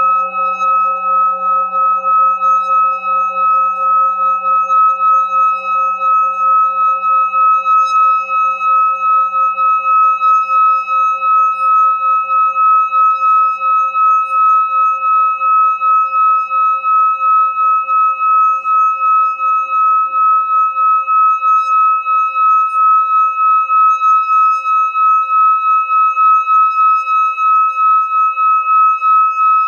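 Metal singing bowl sung by circling its rim with a wooden stick: one sustained ringing tone with fainter overtones above and below it, swelling and dipping about two or three times a second.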